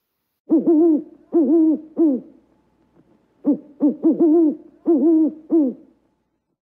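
An owl hooting: three spaced low hoots, then after a short pause a quicker run of about seven.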